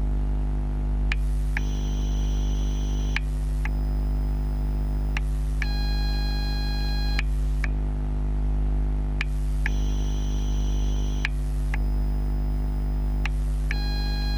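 TGX12 NiMH battery charger, picked up by contact microphones, giving a steady electrical hum with high-pitched tones that change every second and a half or so. Each change comes with a faint click, and the cycle repeats about every eight seconds. This is the strange noise the owner heard from the charger while it charges AA cells.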